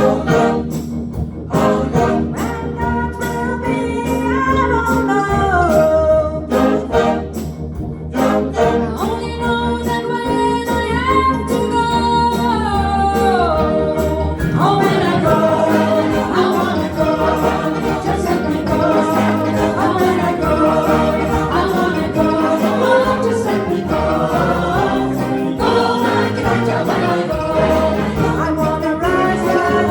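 A choir singing a gospel song over accompaniment, with a steady beat in the first half. About halfway through the sound fills out as more voices and instruments come in.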